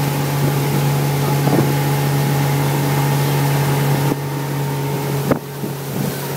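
Motorboat engine running steadily with a constant low hum over hiss. The level dips slightly about four seconds in, and there is a single short knock about a second later.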